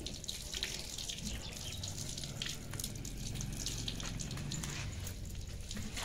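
Water from a garden hose running and splashing over a wet dog's coat and onto a concrete floor, with scattered drips.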